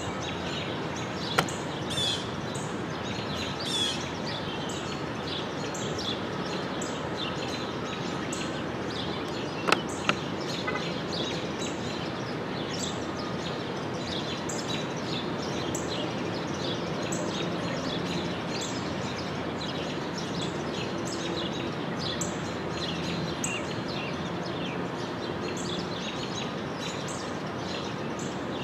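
Small birds chirping in short, high notes, over and over, above a steady background hiss of outdoor noise. A few sharp clicks stand out near the start and about ten seconds in.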